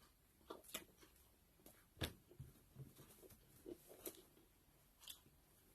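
Faint chewing and mouth sounds from someone eating a spicy fried chicken sandwich: scattered soft clicks and smacks, with a sharper click about two seconds in.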